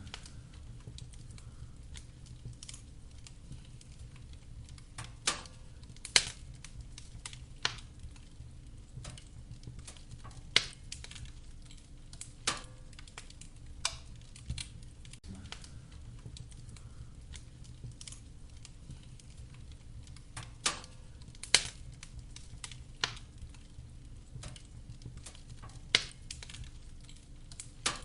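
Burning firewood crackling, with irregular sharp pops a second or more apart, some much louder than others, over a steady low rumble.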